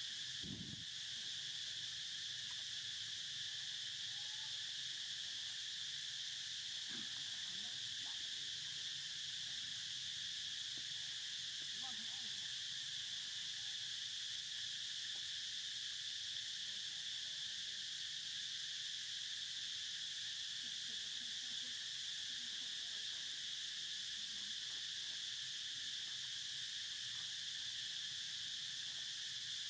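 Steady, unbroken high-pitched drone of an insect chorus calling.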